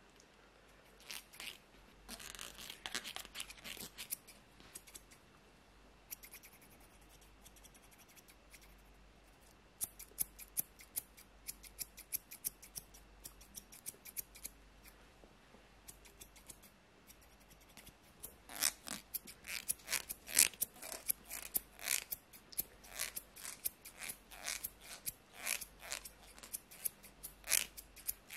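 Hairdressing scissors snipping close to the microphone in quick runs of crisp snips, scattered at first and coming thick and fast through the second half.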